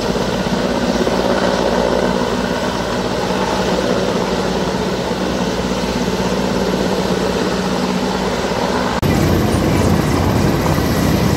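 Mi-17 transport helicopter hovering low, its rotors and turbine engines making a steady drone. About nine seconds in the sound jumps louder and rougher.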